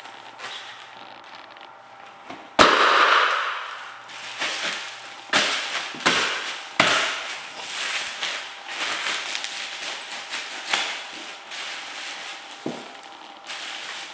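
A silver mylar foil balloon bursting underfoot with one loud, sharp pop about two and a half seconds in, followed by over a second of hissing. Then a few crunching cracks and a run of crinkling as the foil is stepped on and squashed flat.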